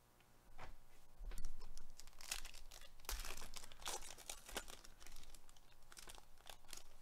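Foil wrapper of a Panini Select baseball card pack being torn open and crinkled: a run of crackling rustles starting about half a second in, loudest around the middle.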